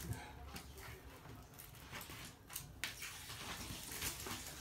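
Toy poodle in an Elizabethan collar moving through a tunnel of cardboard tissue boxes on a wooden floor: scattered light ticks and scuffs, with a few sharper clicks near the middle.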